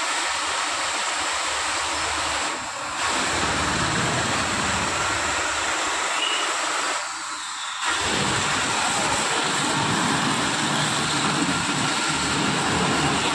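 High-pressure washer with a 10 hp motor, rated at 300 bar, running with a loud steady hiss of the water jet over the hum of the motor and pump. It dips briefly twice, once about two and a half seconds in and again about seven seconds in.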